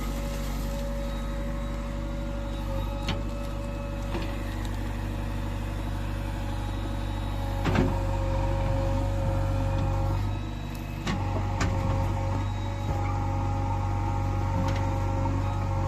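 Heavy diesel engine of a working earth-moving machine running steadily under load, with a few sharp metallic clanks. About ten seconds in the engine note drops briefly, then picks up again.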